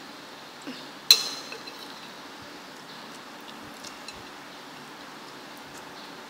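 A metal fork clinks once against a ceramic plate about a second in, with a short ringing tail, followed by a few faint small clicks over a steady background hiss.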